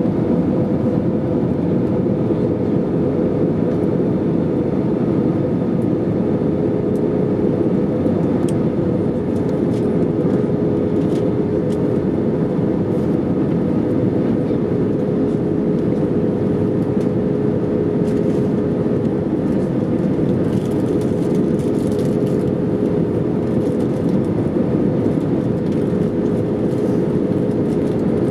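Airliner cabin noise in flight: a steady rush of jet engines and airflow, with a low droning tone held throughout.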